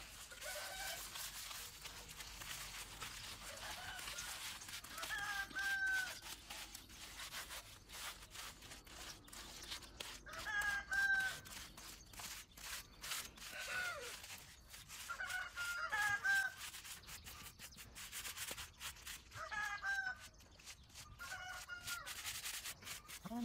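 Chickens calling, a short call every few seconds, over the steady scrape of hand trowels smoothing wet concrete.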